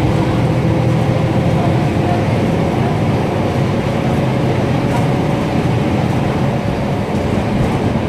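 Mercedes-Benz OM 926 LA inline six-cylinder diesel of an OF-1724 city bus running steadily, heard from inside the bus: a continuous, even engine rumble.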